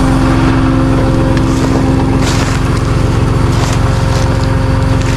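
Tow truck's engine running steadily at a constant pitch, with a few brief crunching rustles in dry leaves in the middle.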